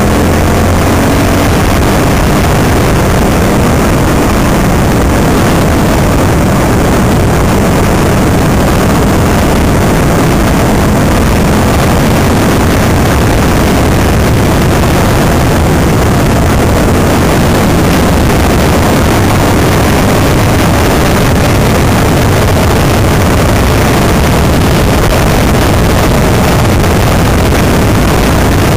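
Enduro motorcycle engine running steadily at road speed, heard loud and close from the moving bike, under a dense rushing noise.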